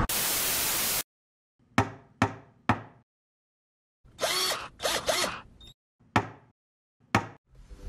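Intro sound effects: about a second of static hiss cuts off sharply, then three quick sharp mechanical clicks. Midway comes a short rattling, ratchet-like mechanical noise of about a second and a half, followed by two more single clicks.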